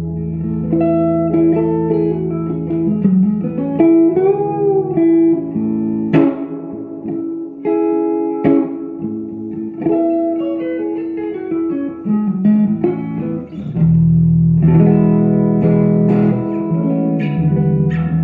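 Silvertone 1413 electric guitar with a Kay pancake pickup, played through a tube amplifier with reverb and a Jensen P12Q speaker. Single picked notes with a string bend about four seconds in, then fuller strummed chords from about fourteen seconds.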